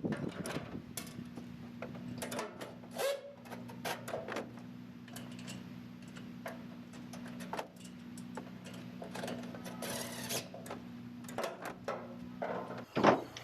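A steady low machine hum with scattered metallic clicks and knocks over it; the hum cuts off shortly before the end.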